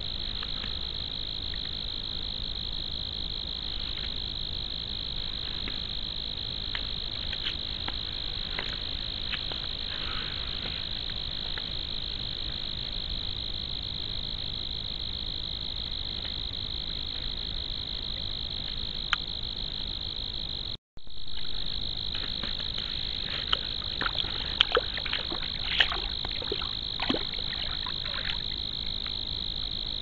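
Steady high-pitched trilling chorus of night insects, with scattered light crackles and rustles as a beaver moves through twigs and brush. The sound cuts out for an instant about two-thirds of the way in.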